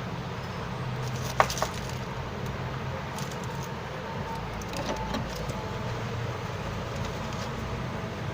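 Hot-air rework station blowing steadily while desoldering a phone's battery connector, a continuous airy hiss over a low hum, with a sharp click of a metal tool about one and a half seconds in.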